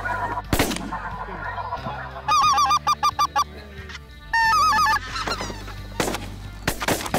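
Greater white-fronted geese (specklebellies) calling, with two loud runs of rapid yelping calls a few seconds in. Sharp shotgun bangs come about half a second in and again near the end.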